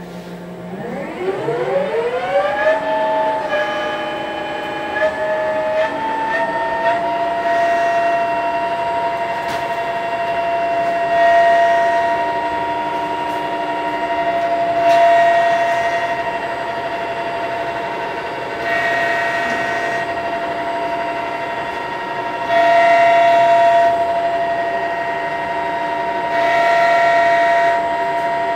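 Smart lathe's spindle drive starting up, its whine rising in pitch over the first few seconds and stepping up a few times before holding steady. Louder, noisier stretches come back about every four seconds as the tool takes repeated threading passes on a 3-inch steel pipe.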